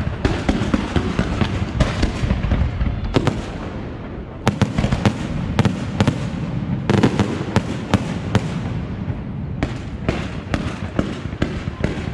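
Castillo aerial fireworks display: a dense, continuous barrage of shell bursts and crackling reports. The barrage thins briefly about four seconds in, then fresh volleys of sharp bangs resume.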